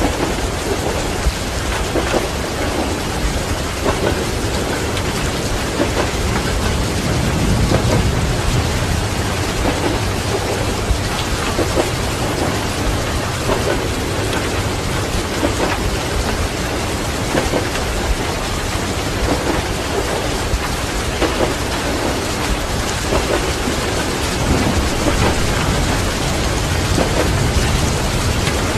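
Steady heavy rain with rolling thunder, the low rumble swelling around eight seconds in.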